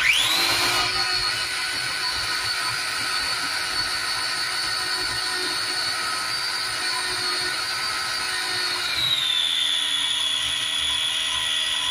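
Small electric food processor's motor starting up and running steadily as it blends eggplant dip, its whine dropping slightly in pitch about nine seconds in.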